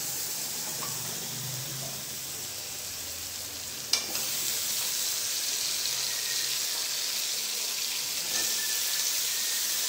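Cut brinjal and drumstick pieces sizzling in hot oil in a steel kadai. A brief clack about four seconds in as a second handful goes in, after which the sizzle is a little louder.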